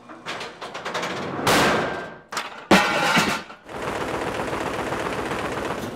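Two loud impacts, about a second and a half and just under three seconds in, as packaged heating and air-conditioning units are knocked about in shipping-abuse tests. Then, from about four seconds in, a steady rapid rattling as a boxed unit is shaken on a vibration table.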